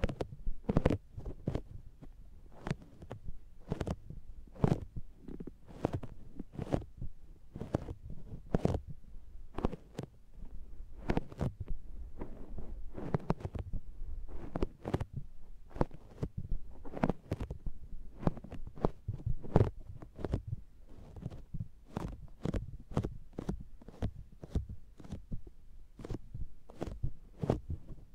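Makeup sponge patting and pressing on the ears of a binaural microphone: soft, muffled, sticky pats close up, coming unevenly at about two a second.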